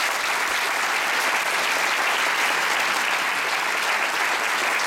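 An audience applauding steadily with sustained clapping at the end of a talk.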